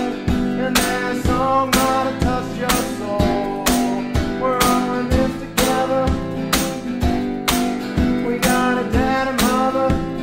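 Acoustic guitar strummed in a steady rhythm, about two strums a second, in a live solo performance.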